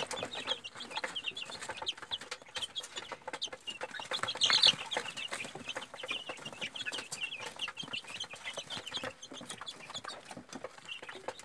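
A brood of young chicks peeping continually, many high short peeps overlapping, as they crowd and peck at a plastic feeder, with small clicks throughout and one louder call about four and a half seconds in.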